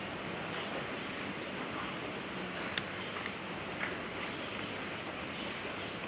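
Steady rain hiss with a few scattered sharp ticks, the loudest about three seconds in.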